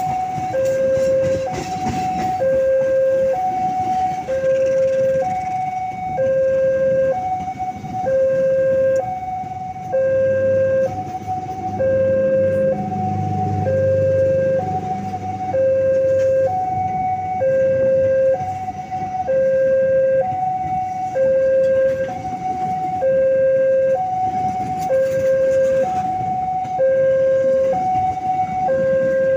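Railway level-crossing warning alarm sounding a steady electronic two-tone ding-dong, a lower and a higher note alternating about once a second, over the rumble of passenger coaches rolling past close by.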